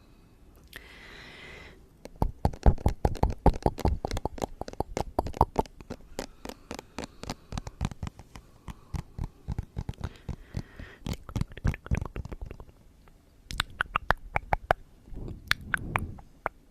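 Close-miked ASMR trigger sounds: a short breathy hiss, then dense, rapid clicking and crackling with deep thuds, thinning out twice before picking up again.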